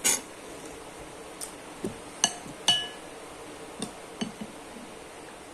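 Cutlery clinking against a dish while eating: about eight separate light clinks at uneven intervals, a couple of them ringing briefly.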